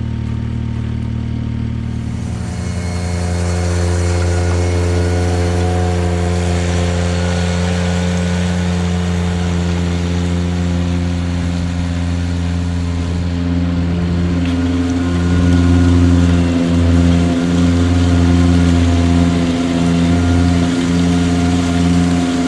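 Ventrac 4500Z compact tractor engine running steadily, speeding up about two seconds in, then dipping briefly a few times in the second half as it takes load.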